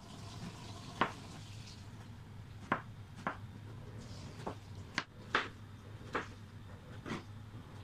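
Kitchen knife cutting peeled bottle gourd (upo) into chunks on a plastic cutting board: about eight sharp, irregular taps as the blade goes through and strikes the board.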